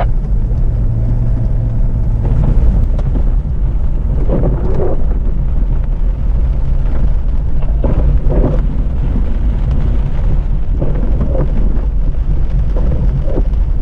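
Off-road 4x4's engine running with a steady, heavy low rumble, with a few brief rises near the middle and end.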